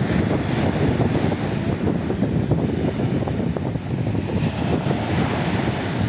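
Strong wind buffeting the microphone in a steady, gusty low rumble, over rough-sea waves breaking and washing up a pebble beach.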